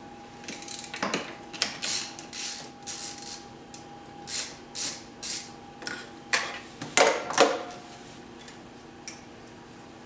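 Hand tool working loose the mounting bolt of a tracked wheelchair's drive motor: a run of short metallic scrapes and clicks, with two louder knocks about seven seconds in.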